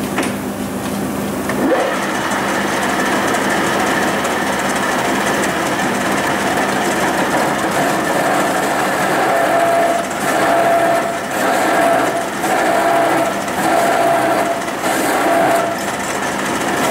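Metal lathe turning a CD4E torque converter while the cutting tool cuts into its steel shell to open it. The sound grows louder and rougher about two seconds in, and from about ten seconds in a ringing metallic tone swells and fades about once a second over the steady cutting noise.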